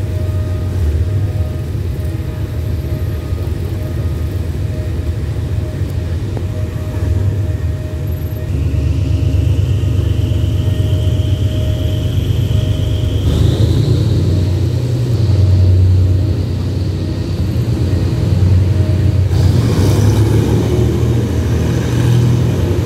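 Diesel train running slowly, heard from aboard, with a steady low engine rumble. A thin high whine slowly rises in pitch from about a third of the way in until just past halfway, and the running noise grows louder near the end.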